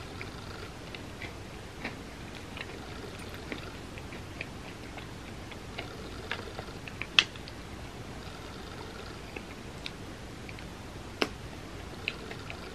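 Close-up chewing of a soft cinnamon roll topped with chocolate spread and M&Ms: scattered wet mouth clicks and smacks, with two sharper clicks about seven and eleven seconds in, over a faint steady hiss.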